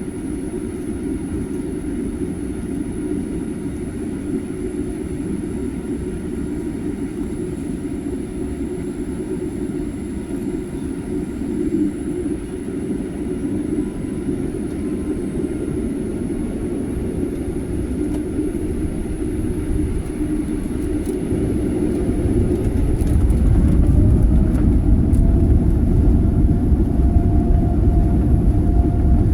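Jet airliner engines running with a steady rumble. About 22 s in the rumble grows louder and a tone rises in pitch as the engines spool up for the takeoff run.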